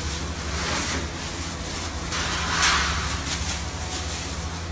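Plastic bags rustling and crinkling as bagged steamed buns are packed into a red plastic carrier bag, loudest about two and a half seconds in. A steady low hum runs underneath.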